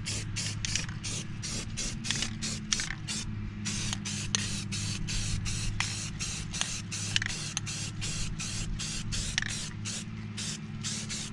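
Aerosol can of Rust-Oleum camouflage spray paint hissing in quick short bursts, about three or four a second, while a canoe seat is sprayed, with a steady low hum underneath.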